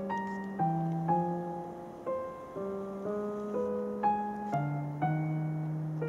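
Slow solo piano music, with notes struck every half second or so and left to ring.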